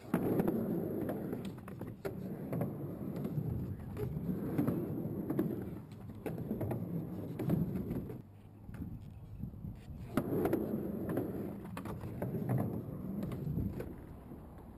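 Skateboard wheels rumbling on a mini ramp's surface as the rider carves back and forth, swelling and fading about every two seconds, with sharp clacks of the board and trucks. The rolling eases off for a couple of seconds past the middle, then picks up again.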